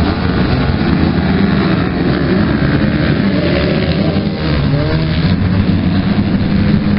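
A pack of two-stroke motocross bikes revving hard and pulling away from the start line together, many engines overlapping, with the pitch sweeping up again and again as the riders accelerate and shift.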